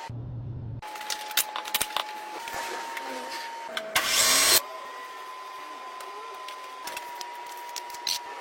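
CNC lathe machining: a steady high machine whine whose pitch jumps several times, with scattered sharp clicks. A loud hiss lasting about half a second comes near the middle.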